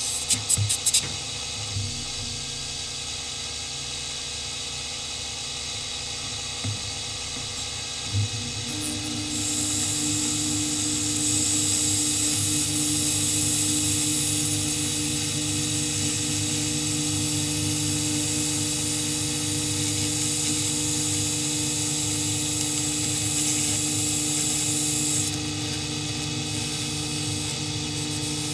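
Grizzly 0759 benchtop mill's spindle running steadily as an end mill cuts a groove through acrylic sheet. From about nine seconds in the sound grows louder, with a steady hum and a high hiss, and the hiss drops away near the end.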